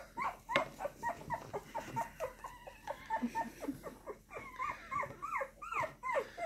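Two-week-old bully puppy whimpering in short, high, squeaky cries, about three a second.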